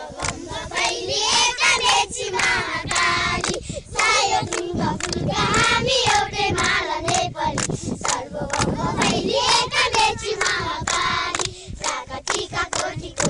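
A group of children singing together, with hand claps.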